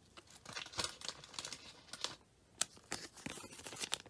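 Trading cards and a plastic card sleeve being handled: light crinkling with scattered small clicks, one sharper click about two and a half seconds in.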